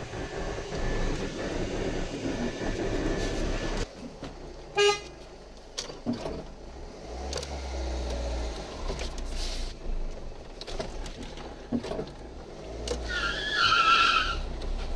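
Car driving uphill, heard from inside the cabin: steady engine and road rumble. A short horn toot comes about five seconds in, and a longer, louder horn sound near the end.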